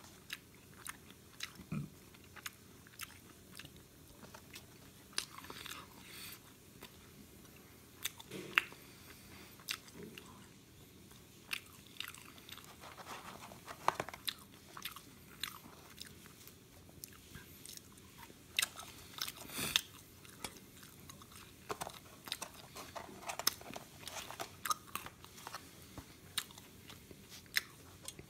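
A person chewing and biting McDonald's french fries close to the microphone: an irregular string of short, clicky mouth sounds.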